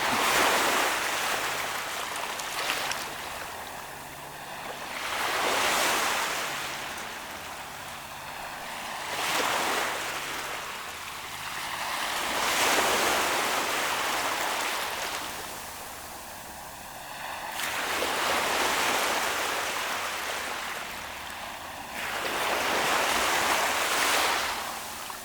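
Ocean waves breaking and washing up on the shore: about six surges, each a rushing swell that rises and fades, arriving every four to five seconds.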